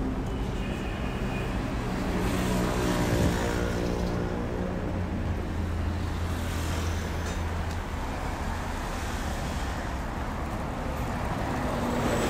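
City street traffic: cars passing, with one engine's low hum louder for a few seconds near the middle.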